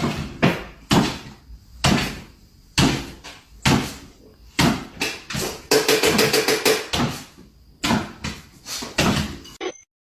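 A series of knocks or thuds, roughly one a second, each dying away quickly, with a busier cluster of knocks about six seconds in.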